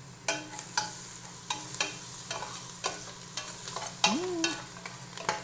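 Metal spoon stirring and scraping around a stainless steel stockpot, clinking against the pot about seven times with a short ring each time, while garlic, onion, ginger and annatto powder sizzle in hot oil.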